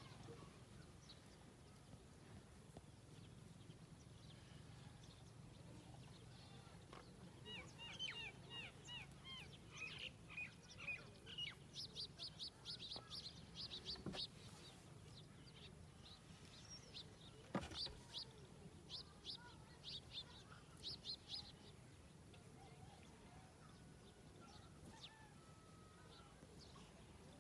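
A parrot chirping in quick runs of short, high notes, several a second, starting about a third of the way in and stopping about three quarters through. A couple of sharp clicks fall among the chirps.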